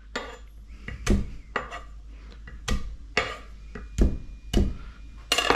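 Chef's knife knocking on a wooden cutting board as garlic cloves are smashed: a series of sharp, irregular knocks.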